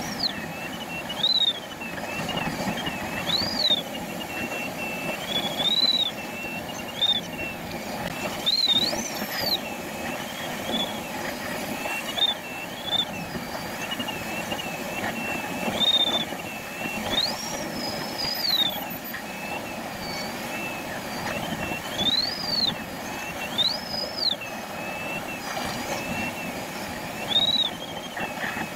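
A glider's audio variometer sounding a continuous electronic tone that swoops sharply up in pitch and back about a dozen times, each rise marking a surge of lift. Under it is a steady rush of airflow past the canopy.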